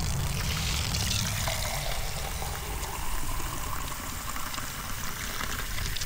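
Water running from a faucet fed by an electric tankless water heater, pouring into a plastic cup held under the stream, over a steady low rumble.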